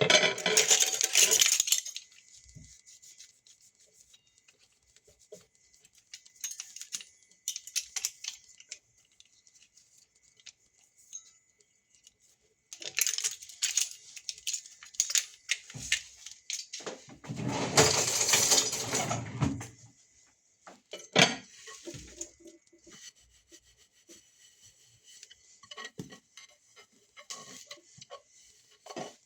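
Kitchen clean-up: dishes, pots and cutlery clinking and knocking, with stretches of scrubbing or rubbing, the longest and loudest around the middle. It comes in irregular bursts with scattered sharp clinks between them.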